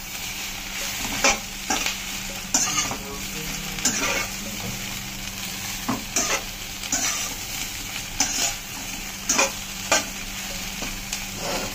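Slotted metal spatula scraping and tossing vegetable Manchurian balls in a black wok, about a dozen strokes at uneven intervals, over steady sizzling from the frying food.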